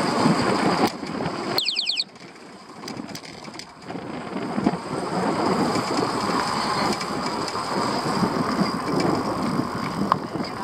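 Wind buffeting the microphone and road rumble of a moving ride. The noise eases off for about two seconds near the start, just after a brief high squeal, then builds back to a steady rush.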